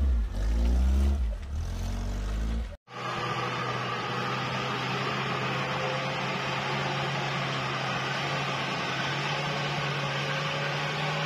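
Off-road 4x4's engine revving up and down under load, with heavy low rumble, as it tries to pull out of mud on a clutch that is worn out. It cuts off abruptly about three seconds in, followed by a flat, steady hum with a low drone.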